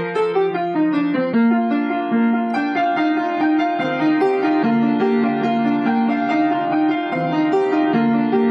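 Solo piano playing: a falling run of notes, then a melody over an even pattern of repeated accompaniment notes.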